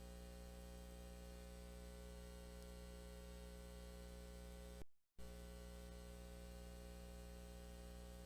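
Faint, steady electrical hum with many overtones and a thin high whine. It cuts out completely for a moment about five seconds in.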